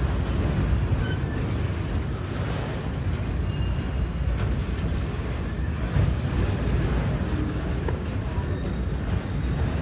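Freight train of boxcars and autoracks rolling past close by: a steady low rumble of wheels on the rails, with a few faint short squeals around the middle.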